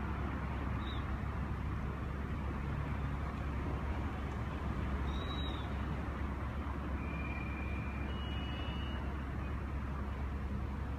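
Steady low rumble of idling emergency-vehicle diesel engines, with a few faint, brief high-pitched chirps and two short steady whistles over it in the second half.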